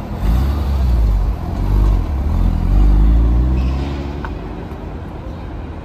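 A car engine running with a loud, deep note that swells a few times, then fades away over the next second or so.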